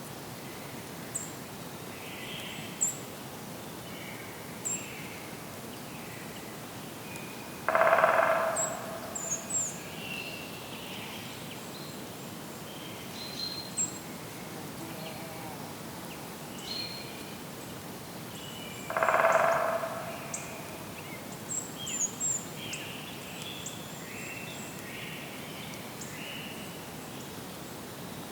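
Outdoor birdsong: assorted birds chirping and calling over a steady background hiss, with short high chirps scattered throughout. Twice, about 8 and 19 seconds in, a louder and lower call stands out, each lasting about a second.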